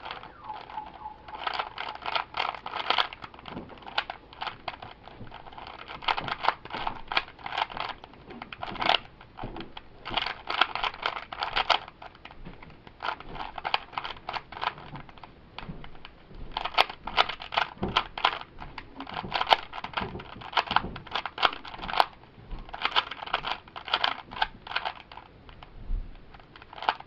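3x3 Rubik's cube being turned by hand: bursts of rapid plastic clicking and scraping as the layers turn, in runs of a second or two with short pauses between.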